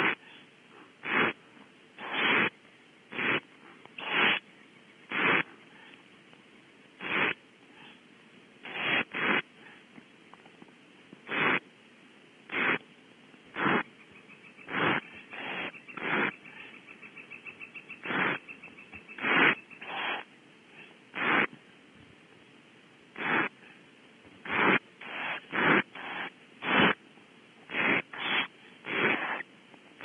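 Barn owl owlets giving hissing, snore-like food-begging calls, short noisy rasps about once a second in an irregular series, while being fed. About halfway through comes a faint run of fast, even ticking notes.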